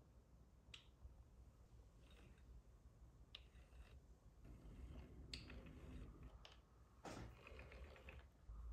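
Near silence with a few faint, scattered clicks and taps, and a small cluster of them near the end.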